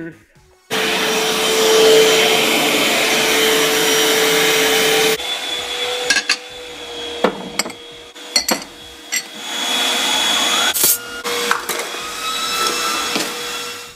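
Upright vacuum cleaner switched on about a second in, its motor running with a steady drone. About five seconds in it becomes quieter and keeps running, with scattered knocks and clicks over it.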